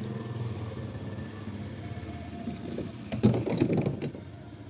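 Toy monster truck rolling along a plastic playground slide, its wheels clattering in a loud burst of rattling clicks about three seconds in.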